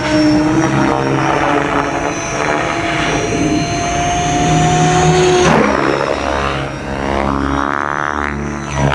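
Electric-converted Align T-Rex 700 radio-controlled helicopter flying, its Neu 1915 motor whining steadily under the rotor blade noise. About halfway through, the pitch shifts and sweeps up and down as it manoeuvres past.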